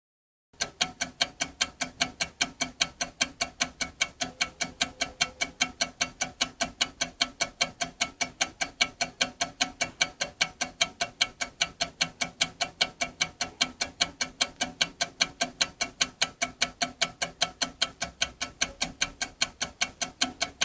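Sharp, evenly spaced clicks at about four a second, starting about half a second in and keeping a steady beat throughout, like a fast ticking sound effect.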